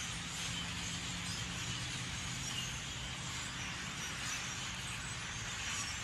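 Steady outdoor background noise with a faint low hum in the first couple of seconds.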